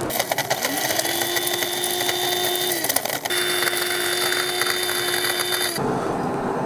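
Electric high-speed blender grinding hard, dry whole spices into powder: a loud motor whine over a rattling hiss, rising as it spins up, running about three seconds, cutting out briefly, then running again for about two and a half seconds before it stops.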